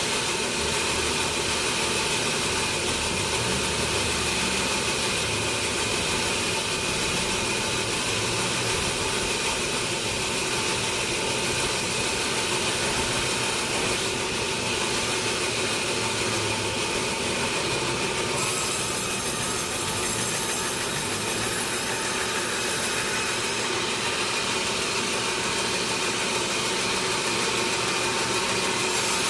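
Sawmill saw machinery running steadily: a constant mechanical hum and noise with a steady tone in it, turning brighter and hissier about two-thirds of the way through.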